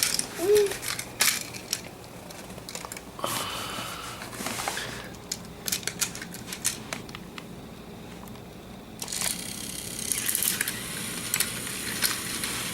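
Toy trains and track pieces clicking and clattering as they are handled, with irregular small knocks and stretches of rustling.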